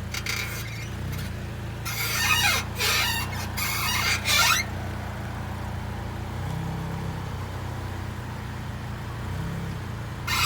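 Car suspension squeaking on a Honda or Acura: a few loud squeaks that slide in pitch during the first half, and another at the very end, over a steady low hum. The squeak is typical of a dry lower ball joint whose rubber boot has broken and let the grease out, so metal rubs on metal.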